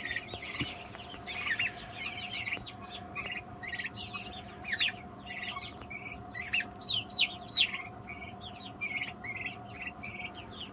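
A flock of five-week-old turkey poults peeping: many short, high chirps, overlapping one after another, over a faint steady hum.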